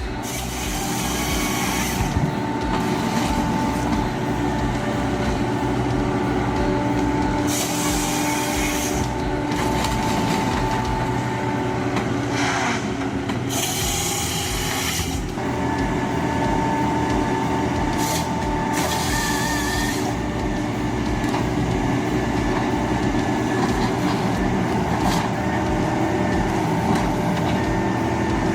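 Ponsse Ergo 8W forestry harvester running, its engine and hydraulics making a steady hum and whine. Several short bursts of harsh noise break in at intervals.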